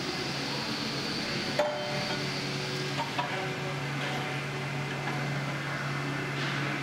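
Steady workshop hum with a couple of light metal knocks, about a second and a half and three seconds in, as a steel crossmember is fitted by hand into the truck frame's tabs.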